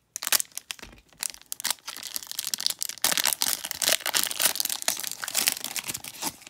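Foil wrapper of a trading card pack being cut with a utility knife and pulled open by hand: dense crinkling and tearing, busier from about three seconds in.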